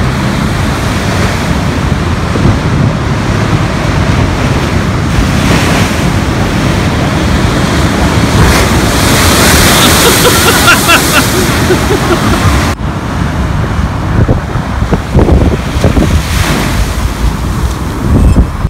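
Rough sea: large waves crashing against a sea wall and throwing spray across a promenade, with wind buffeting the microphone. The surge is loudest about ten seconds in, drops suddenly about two-thirds through, then swells again.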